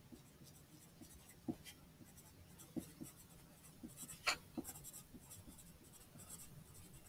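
Pencil writing on paper: faint, broken scratching with a few light ticks as the letters are formed.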